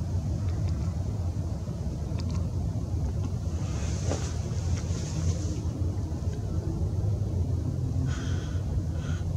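Steady low rumble of outdoor background noise, with brief faint hissing about four seconds in and again near the end.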